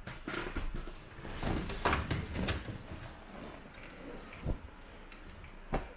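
Rustling with a quick run of soft knocks and clicks over the first half, then two single clicks near the end.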